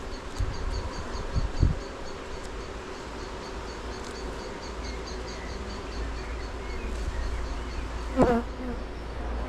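Honey bees buzzing steadily around an open hive while its frames are inspected, with a few low knocks in the first two seconds.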